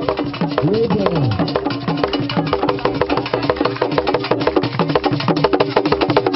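A drum ensemble playing fast, busy rhythms of rapid sharp strokes over a steady lower beat, with a short rising-and-falling pitched glide about a second in.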